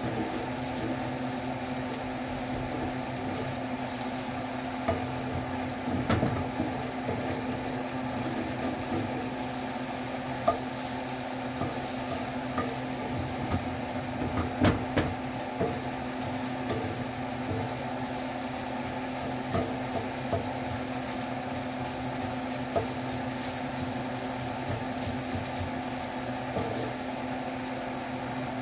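Eggs sizzling in a cast-iron skillet while a wooden spatula stirs them, scraping and knocking against the pan now and then, over a steady hum.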